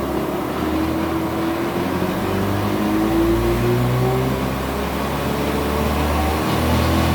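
An engine running steadily, with a whining tone that rises slowly in pitch over the first few seconds.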